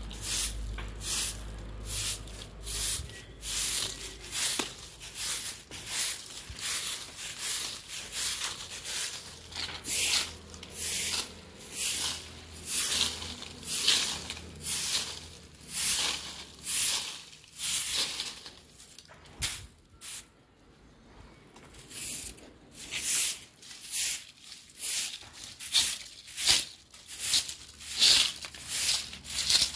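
Straw bundle broom sweeping dry leaves across concrete and dirt ground in short, scratchy strokes, about one to two a second, with a pause of about two seconds roughly two-thirds of the way through.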